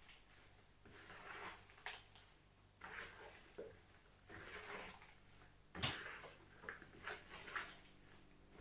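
Soft handling noises: scattered light knocks, clicks and rustles, the sharpest knock about six seconds in, over a faint steady low hum.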